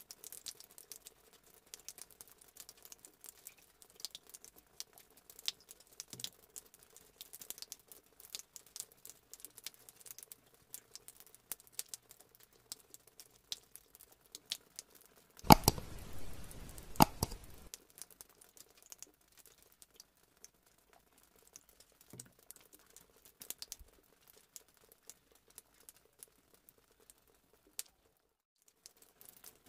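A sealed plastic drink cup and a plastic straw handled close up, the straw going through the film lid: scattered light crinkles and ticks of plastic, with a louder scratchy crackle lasting about two seconds just past the middle.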